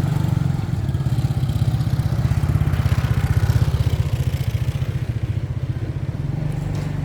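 Off-road buggy engine running while driving, a fast, even low pulse that carries on steadily.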